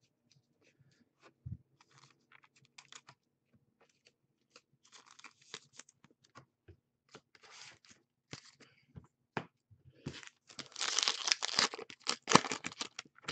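Trading cards and foil card-pack wrappers being handled: scattered light clicks and rustles, then a louder run of crinkling and tearing in the last few seconds as a pack is opened.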